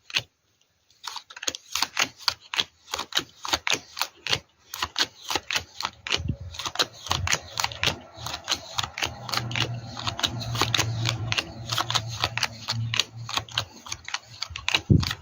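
A deck of playing cards being shuffled and handled, a rapid, irregular clatter of card clicks and flicks.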